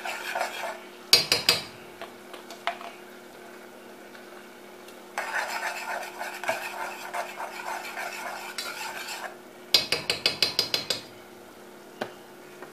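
A metal spoon scrapes and stirs minced garlic into melted butter in a metal pot. There are a few sharp spoon taps about a second in and a quick run of about ten taps near the end, knocking the spoon against the rim. A steady low hum runs underneath.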